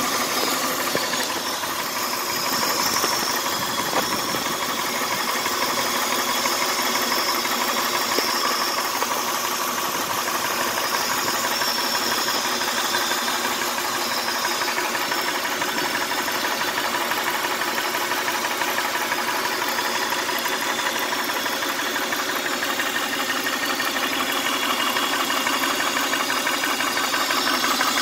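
1999 Honda Odyssey's V6 engine idling steadily, with a constant hissing, ticking noise over the idle that the owner suspects is a vacuum leak under the intake manifold.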